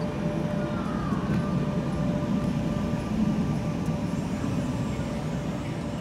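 Electric tram pulling away along street track: a steady rumble of wheels on rail with a faint, steady motor whine, and a short falling whine about a second in.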